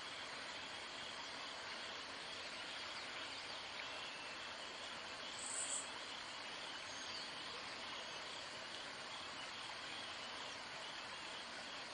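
Steady outdoor ambience of insects chirring, an even high hiss with no break, with one brief high chirp about five and a half seconds in.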